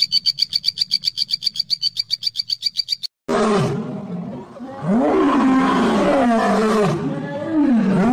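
A fast, even, high-pitched pulsing trill of about a dozen pulses a second lasts about three seconds. Then, after a brief break, a male lion roars loudly in a run of rough calls that rise and fall in pitch.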